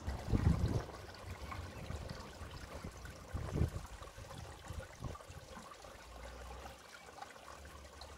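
Water trickling steadily into a garden fish pond, with a couple of low rumbles about half a second in and about three and a half seconds in.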